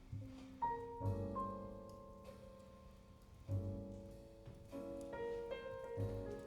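A jazz piano trio recording played through Sound Lab G9-7C electrostatic loudspeakers and picked up by a room microphone. Piano chords are struck every second or two over double bass notes, each chord ringing and fading before the next.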